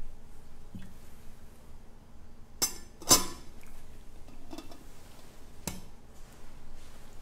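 Metal altar vessels, a chalice and its companions, clinking and knocking as they are handled and set down on the altar while being cleared and purified after communion: a handful of sharp clinks, the two loudest close together near the middle.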